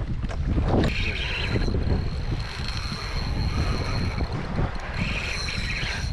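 Wind buffeting the microphone aboard a fishing boat at sea, a rough steady rumble, with a thin steady high tone starting about a second in.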